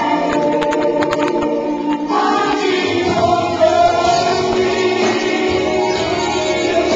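Gospel worship song with choir singing and a woman's lead voice through a microphone, heard as a fuzzy recording. A few sharp taps sound about a second in, and a new sung phrase starts about two seconds in.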